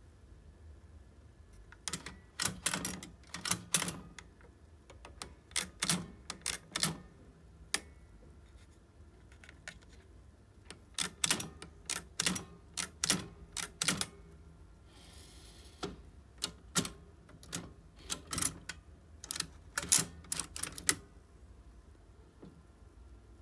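Double Pigeon Chinese typewriter being operated: sharp mechanical clacks as characters are picked from the type tray and struck, coming in clusters of several strikes with short pauses between. About two-thirds of the way through there is a brief rasping sound between the clusters.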